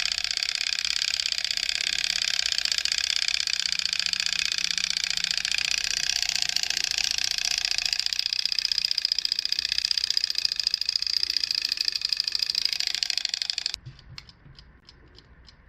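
Soviet Vityaz wind-up mechanical alarm clock ringing continuously, its hammer beating very fast: the full-alarm stage of its gradual-wake mechanism. The ringing cuts off suddenly near the end, leaving faint ticking.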